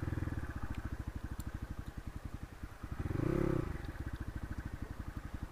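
Crossfire RM250 dirt bike's engine running at low revs as the bike rolls slowly over rough ground, with a short throttle blip, the revs rising and falling, a little past halfway.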